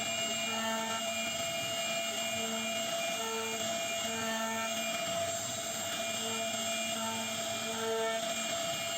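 CNC router running as it carves wood: a steady machine whine and hiss, with shorter pitched tones that start and stop every half second or so as the machine moves.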